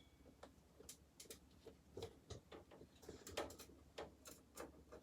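Faint, irregular small clicks and ticks of a screwdriver turning small machine screws and of metal parts being handled, as motherboard screws are started into the case's standoffs.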